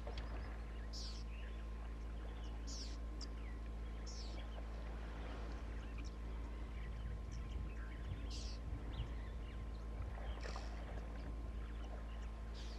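African elephant wading through a shallow muddy waterhole, the water sloshing and splashing around its legs, over a steady low rumble. Short high bird chirps come every couple of seconds.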